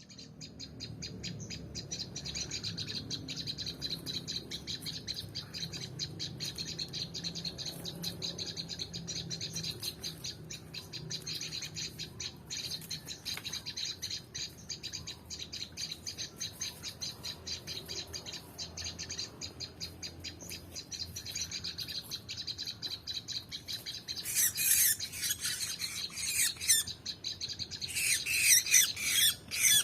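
Birds calling: a fast, steady run of high chirping notes, then louder, harsher chirps and squawks from about three quarters of the way in.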